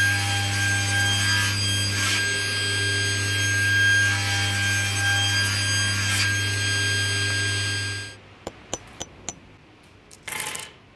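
Table saw running with a steady hum and whine while crosscutting small wooden blocks on a sled, with the blade going through the wood about two and six seconds in. The saw noise stops abruptly about eight seconds in, followed by a few light wooden knocks and a short scrape near the end.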